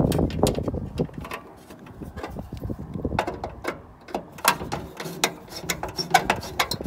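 Screwdriver tightening the set screw of a meter base's ground lug onto a bare copper wire, with the wire being seated in the lug: many irregular small metal clicks and scrapes.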